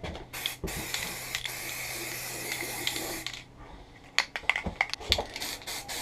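Aerosol rattle can of satin black spray paint hissing in a steady spray for about three and a half seconds as it coats a motorcycle swing arm. It is followed by a run of irregular sharp clicks and knocks.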